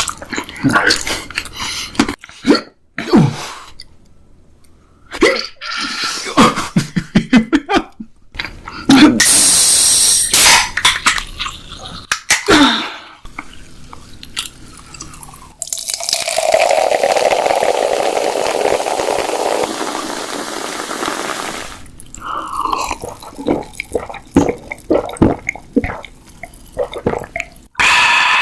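Close-miked eating sounds: wet chewing and mouth clicks in irregular bursts, with a steady rushing hiss lasting about six seconds midway.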